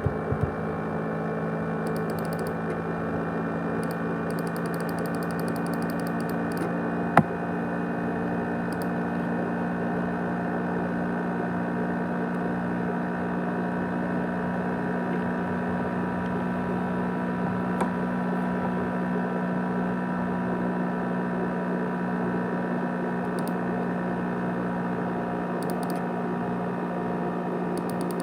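500GB hard disk drive of an ASUS X543UA laptop spinning, a steady whirring hum with several constant whining tones, the noise its owner likens to a jet engine. A single sharp click comes about seven seconds in.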